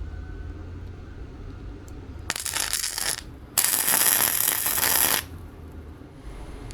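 Two bursts of metallic jingling and rattling, the second longer and louder.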